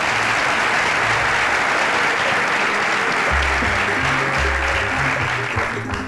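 An audience in a hall applauding steadily for several seconds, dying away near the end, over background music with low bass notes.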